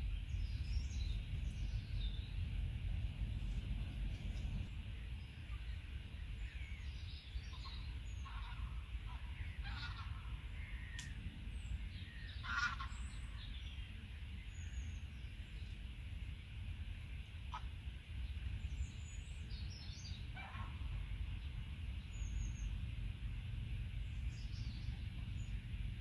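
Scattered short bird calls, the clearest about halfway through, over a steady low rumble.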